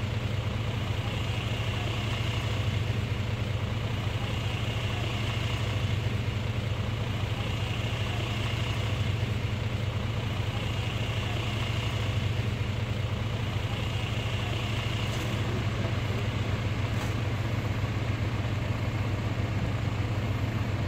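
Steady low mechanical drone of machinery running at a constant speed, with a faint high tone swelling and fading every couple of seconds.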